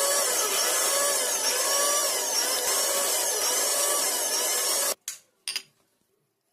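Electric mixer grinder running at full speed, grinding a wet green herb-and-spice paste, its pitch rising and falling over and over as the blades churn the load. It cuts off abruptly about five seconds in, followed by two brief clatters.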